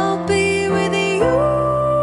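A song sung by a woman over steady accompaniment. The voice steps up about a second in and holds a long note.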